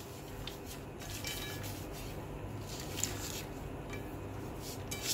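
Kitchen utensils and dishes clinking and knocking now and then during cooking, over a steady low hum.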